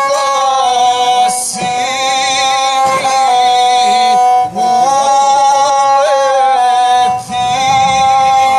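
Gusle, the single-string bowed folk fiddle, played with a nasal, ornamented voice singing a traditional epic song over it. The melody moves in small steps up and down, with a quavering vibrato in the voice.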